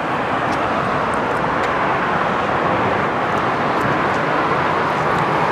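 A steady, even rushing noise with no separate events.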